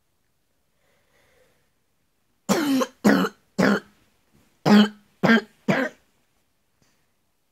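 A person coughing: six harsh coughs in two quick runs of three, about a second apart.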